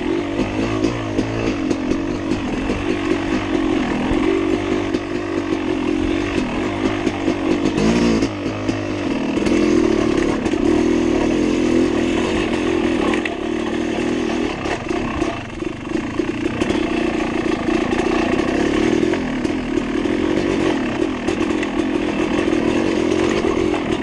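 Dirt bike engine running continuously on a wooded single-track ride, its pitch and level rising and falling with the throttle and dipping briefly about 8 seconds in and again around 15 seconds.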